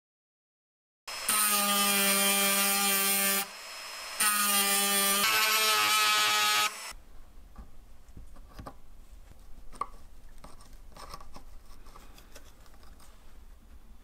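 A small electric power tool runs at a steady whine in two runs of about two and a half seconds each, with a short break between. Afterwards only faint clicks and handling noises follow.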